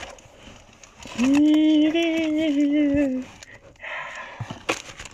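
A man's drawn-out, wavering 'ooooh' of delight, about two seconds long, starting about a second in, rising at first and falling off at the end. Light rustling and crinkling of packing paper and card packs around it.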